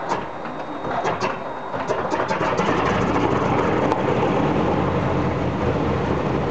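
Ilyushin Il-14's Shvetsov ASh-82T fourteen-cylinder radial engine running on a ground run-up with its cowlings removed. For the first couple of seconds it runs unevenly, with several sharp cracks. Then it settles into a steadier, louder run that holds.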